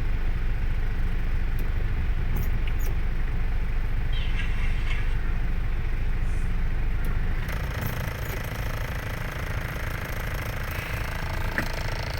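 A vehicle driving through heavy rain: a steady low road-and-engine rumble under the even hiss of rain and spray. About seven seconds in, the rumble eases and the higher hiss of rain and wet road comes up.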